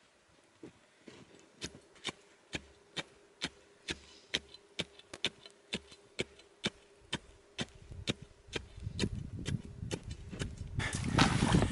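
Steady, repeated strikes chopping a hole through thick lake ice, about two to three blows a second. Near the end the hole breaks through and water rushes and sloshes up into it.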